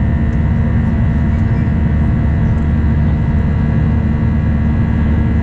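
Boeing 737-800's CFM56-7B turbofan engines heard inside the cabin while climbing out after takeoff. A steady, loud deep rumble with a thin steady whine above it.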